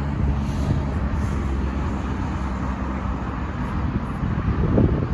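Airbus A330's jet engines during takeoff, a steady low rumble with a faint hum.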